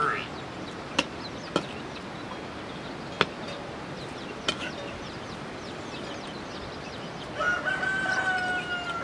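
A rooster crows once near the end, one long held call. Before it come a few sharp clicks, over faint small-bird chirps.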